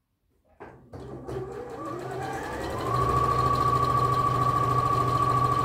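Computerized sewing machine (bernette b38) starting to stitch about a second in, speeding up with a rising motor whine over the next two seconds, then running steadily at full stitching speed.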